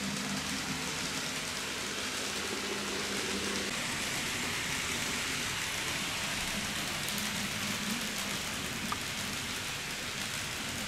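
An N-gauge model steam locomotive (TOMIX C57) and its coaches running along the track: a steady rushing hiss of wheels on the rails, with a low motor hum that fades out about four seconds in.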